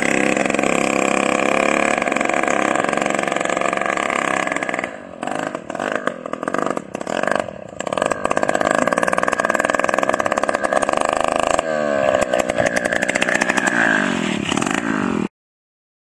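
Small engine of a homemade minibike running. It turns ragged and uneven about five to eight seconds in, then runs steadily again with a brief rise in pitch about twelve seconds in, and cuts off suddenly near the end.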